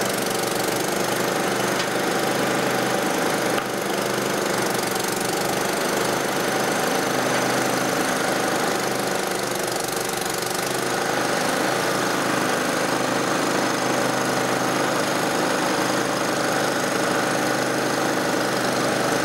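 Engine of a truck-mounted loader crane running steadily, driving the crane's hydraulics, with an even, unchanging pitch.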